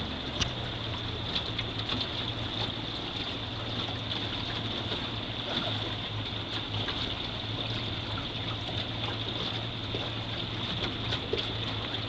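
River water rushing steadily, with a steady low hum underneath and scattered short splashes.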